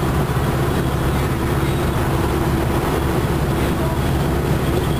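Interior drone of a 1996 Nova Bus Classic cruising at highway speed. Its Detroit Diesel Series 50 engine runs steadily, with a constant low hum under even road and tyre noise, heard from inside the passenger cabin.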